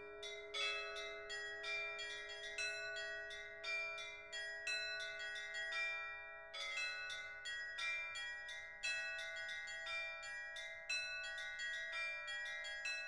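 Church bells ringing: several bells of different pitch struck one after another in a quick, uneven pattern, each note ringing on over the next. There is a short break about six seconds in.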